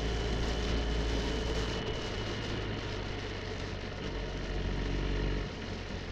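BMW R1250 GSA's boxer-twin engine running steadily while riding at road speed, under a steady rush of wind and road noise. The engine's low rumble and overall level drop about five and a half seconds in.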